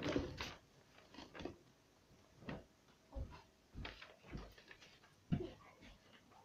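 Faint, scattered rustles and light knocks from a handheld camera being moved about and handled.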